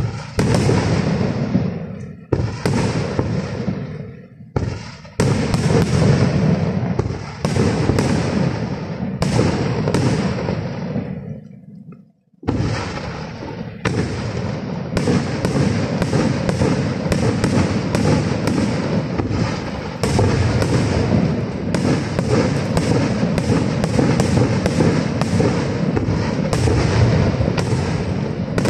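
Aerial fireworks shells bursting one after another, each bang trailing off. The bursts come a second or two apart, drop into a brief lull about twelve seconds in, then return as a fast, dense run of many reports a second.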